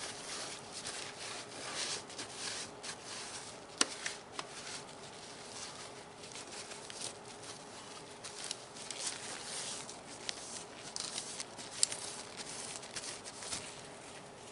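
Plastic body of a Nerf gun being wiped and rubbed, a continuous dry scratchy rustle in short strokes, with a sharp plastic click about four seconds in and another near the end.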